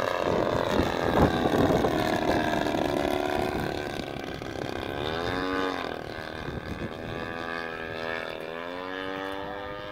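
A radio-controlled model airplane's motor and propeller whine as it flies past overhead. The pitch sweeps sharply down about five seconds in, then rises again near the end.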